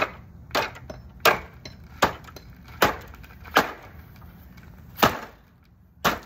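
Hard blows striking a Samsung TV, about eight sharp cracking impacts roughly every three quarters of a second, with a longer pause before the last two.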